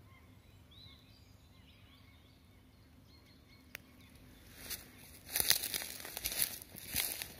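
Footsteps crunching and rustling through dry fallen leaves, setting in about two-thirds of the way through and staying loud and irregular. Before that, faint scattered bird chirps over a quiet wood.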